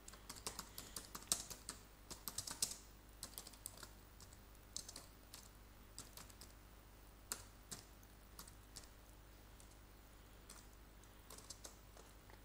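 Faint typing on a computer keyboard: uneven runs of keystroke clicks, thickest in the first few seconds, sparser through the middle, with another quick run near the end.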